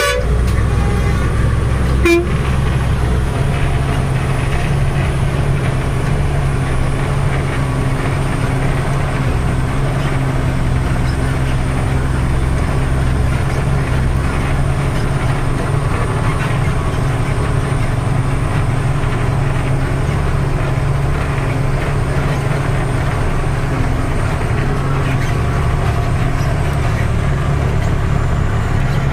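Tata 3118 12-wheeler truck's diesel engine running steadily under way, heard from inside the cab. A brief sharp sound comes about two seconds in.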